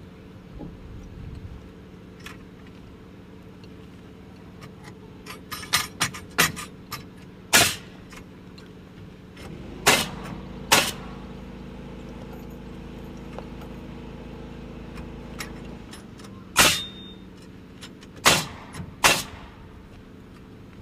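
A series of sharp knocks and blows, about nine, scattered irregularly, as wooden framing rafters are set and tapped into place against the roof sheathing. A steady machine hum runs underneath and grows louder through the middle.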